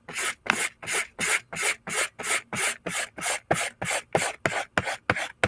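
Knife edge drawn over a cardboard strop in quick, even trailing-edge strokes, about three a second, each a short scrape. The scratchy sound is the burr still on the edge, being stropped off.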